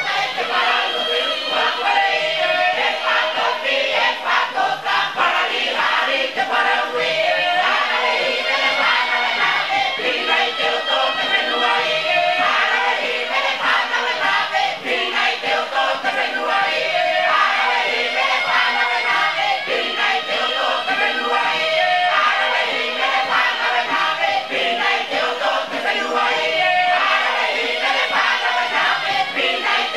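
Tahitian choir singing a himene tārava: many voices in close polyphonic harmony, holding chords in repeating phrases.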